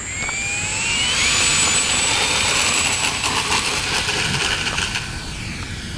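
Electric motor and three-blade propeller of a small HobbyKing Yak 54 RC plane, whining up in pitch over the first second as it throttles up, then running at a steady, high buzz.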